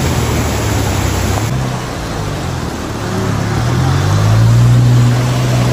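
Rushing river water over the engine of an off-road SUV driving through it. About three seconds in, a Mahindra Scorpio's engine note rises and grows louder as it pushes through the current.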